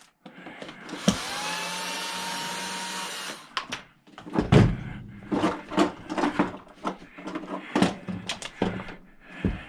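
A power screwdriver or drill running for about three seconds, its pitch rising slightly, as it backs screws out of a jump-starter's plastic case. After it come a string of clicks and knocks of plastic parts and tools being handled.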